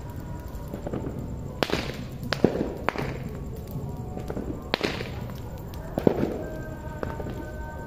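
Bonfire burning with a series of sharp, loud cracks and pops, about five in all, as showers of sparks shoot up from it.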